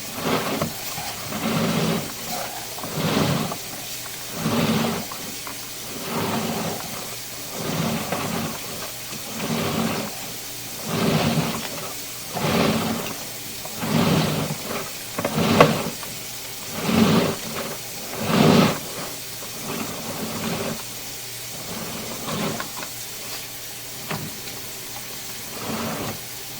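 Water rushing through a drain line into the sewer main, swelling in regular surges about every one and a half seconds and easing off in the last few seconds.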